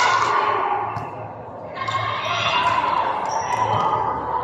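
Indoor volleyball rally: players' shouts and calls ring out in a large, echoing sports hall, with a few sharp hits of the ball. The sound dips about a second and a half in, then the calls pick up again.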